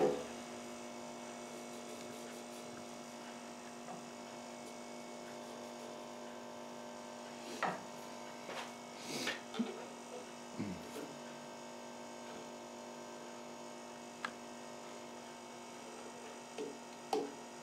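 Wood lathe running with no tool cutting: a steady electrical hum. A few faint, brief squeaks come over the middle, with a single tick a little later.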